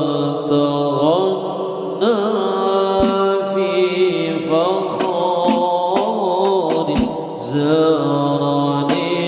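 Sholawat sung in Arabic: a melismatic vocal line with sliding, ornamented pitches, plus two low drum beats about four seconds apart.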